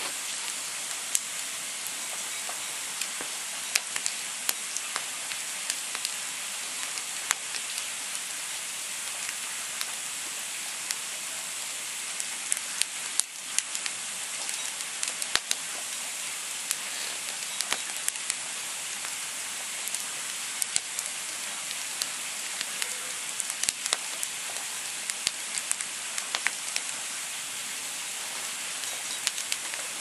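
Wood campfire burning: a steady hiss from the flames with frequent irregular pops and snaps from the burning logs.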